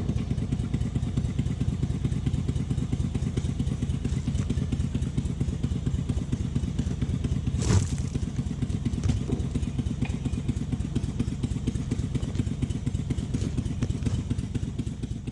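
An engine idling steadily with a fast, even pulse, and a sharp click about halfway through.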